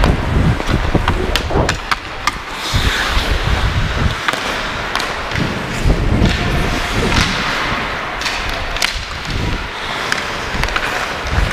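Ice hockey skates scraping and carving across the ice, with many sharp clacks of sticks on the puck and against each other. A low rumble from wind and movement on the microphone runs underneath.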